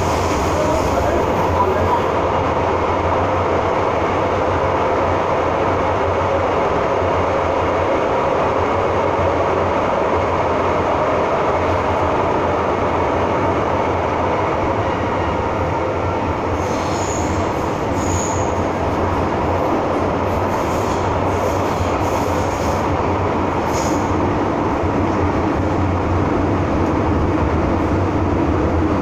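Steady running noise of an MTR M-Train heard inside the passenger car: rumble and hum of the wheels and motors in the tunnel. A few brief high squeals from the wheels come about halfway through and again later.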